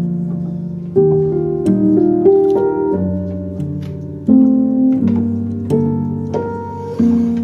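Background piano music: chords struck about once a second, each ringing and fading before the next.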